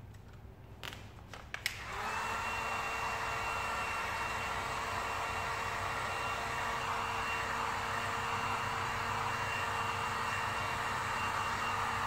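Handheld electric heat gun switched on about two seconds in and running steadily, an even blowing rush with a faint steady whine, as it heats vinyl wrap film. A few faint clicks come before it starts.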